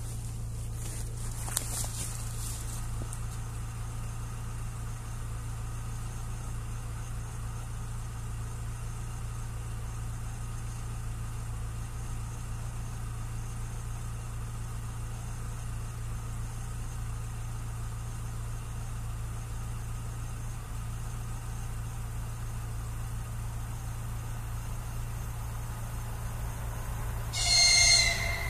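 A steady low hum, then near the end a single horn blast of about a second from an ES1P Lastochka electric train as it approaches.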